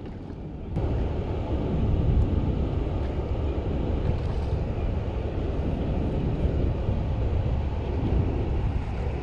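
Steady low rushing noise, deepest and strongest at the bottom, stepping up a little about a second in and then holding even.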